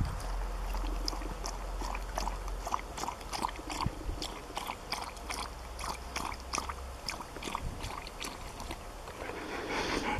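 Siberian Husky lapping water from a small plastic bowl: a steady run of wet laps, about two to three a second.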